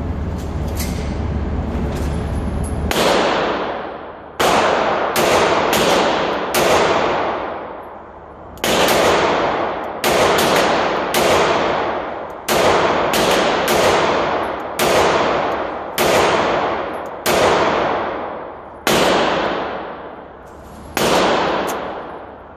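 Sig P365 pistol firing a long string of shots, roughly one a second with a few short pauses. Each sharp report trails off over about a second in a hard-walled indoor range. The shots begin about three seconds in, after a steady low rumble.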